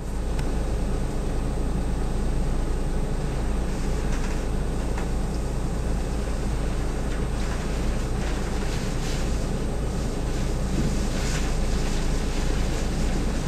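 Strong wind from an approaching typhoon buffeting the microphone as a steady deep rumble under a hiss, with brief louder gusts about four seconds in and again between about eight and eleven seconds.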